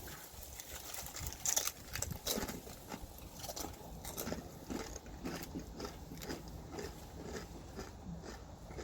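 Crunching and chewing of the Paqui One Chip, a very hot tortilla chip, in a string of short crisp crunches that grow softer toward the end.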